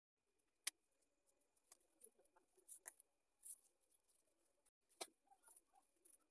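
Faint rustling and tapping of cut corrugated cardboard pieces being handled, with two sharp clicks, one under a second in and one about five seconds in.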